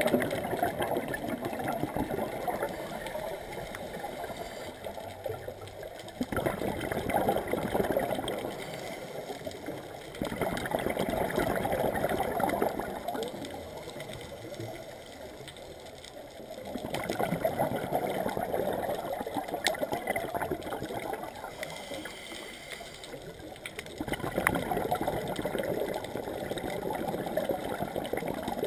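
Scuba diver breathing through a regulator underwater: a bubbling rush of exhaled air swells and fades about five times, roughly every five to seven seconds, with quieter stretches between breaths.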